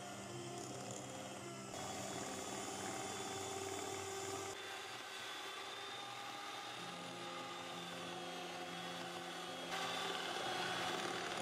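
Electric hand mixer running, its twin wire beaters whirring through thick creamed butter and sugar; the loudness steps up and down a few times. Soft background music with held low notes plays underneath.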